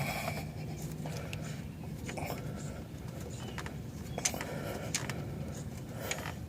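Faint, irregular small clicks and scrapes of a wrench and fingers working a nut loose on the airbag sensor mount, over a steady low hum.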